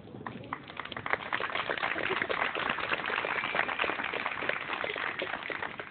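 Audience clapping, a dense patter of many hands that swells about a second in and thins out near the end.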